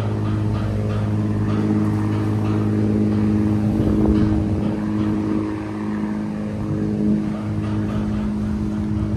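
A cruise ship tender boat's engine running steadily as it manoeuvres, a constant low hum with no change in pitch.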